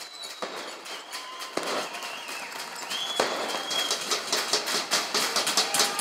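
Intro soundtrack building up: a noisy swell that grows louder, with sharp hits about half a second, a second and a half and three seconds in, then a fast, regular crackle of hits from about four seconds in, leading into music.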